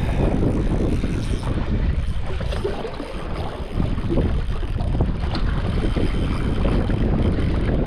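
Wind buffeting the microphone, a steady low rumble with no clear engine tone.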